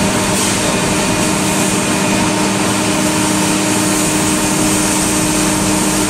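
Industrial air compressor unit running: a loud, steady machine drone with a constant low hum.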